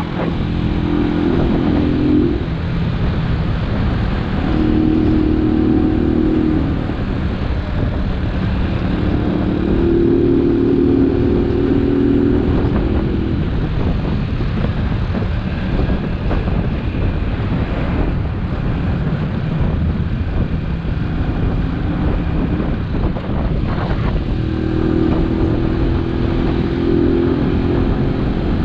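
Italika DT 125 motorcycle's single-cylinder four-stroke engine running under way, its note swelling and easing off several times as the throttle opens and closes, over steady wind and road rumble.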